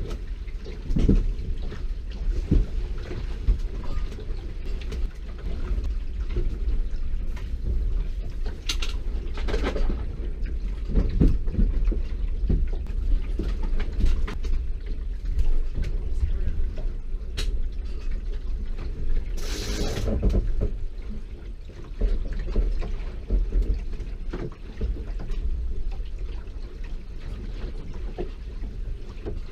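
Low, steady rumble inside a small sailboat's cabin, with scattered knocks and bumps as a person climbs the companionway steps. A short, louder hiss comes about two-thirds of the way in.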